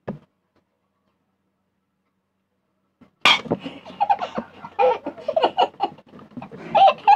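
Hearty laughter that starts suddenly about three seconds in, after a stretch of dead silence, and goes on in quick, loud peals.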